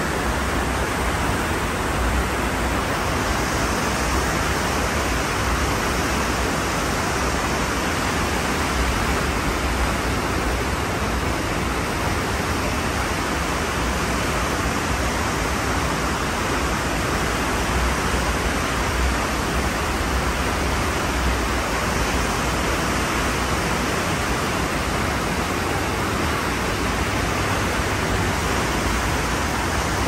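Ocean surf as a steady, even rush of noise, with no separate waves rising or breaking.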